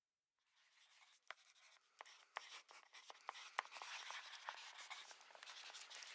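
Faint crackling, rustling noise with scattered sharp clicks, fading in and slowly growing louder.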